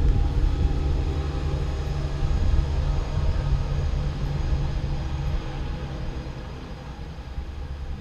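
A passing vehicle's engine running steadily with a low rumble, dying away over the last few seconds.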